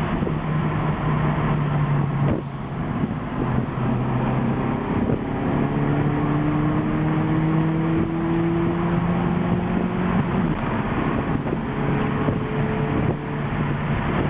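Acura Integra's B20 four-cylinder engine pulling hard under acceleration, heard from inside the car. Its pitch climbs steadily through each gear and drops back at the shifts, about two seconds in and again about ten seconds in.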